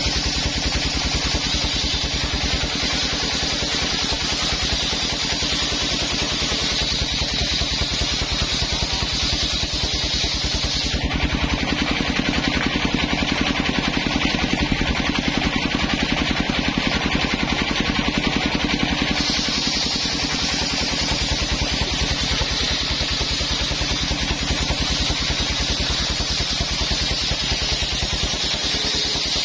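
Homemade engine-driven circular saw table running steadily while its blade rips a coconut-palm trunk into planks. The sound shifts about 11 seconds in, losing its high hiss, and the hiss returns about 19 seconds in.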